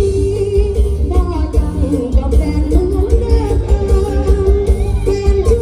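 Live Isan mor lam band music played loud through a concert PA, with a woman singing the melody over a heavy bass beat.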